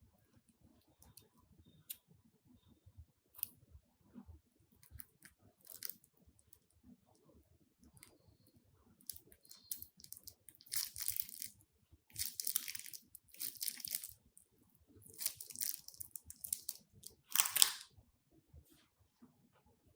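Crunchy slime being squeezed and pressed by hand, giving scattered small clicks and then several crackly crunching bursts, the loudest near the end.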